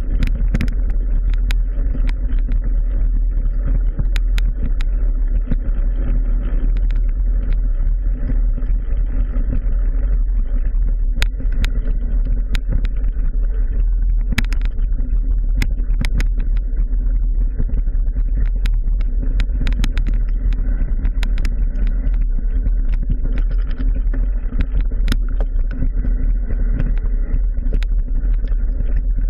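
Wind rumble and rolling noise from a mountain bike ridden at speed, picked up by a handlebar-mounted GoPro, with frequent sharp clicks and knocks as the bike jolts over the trail.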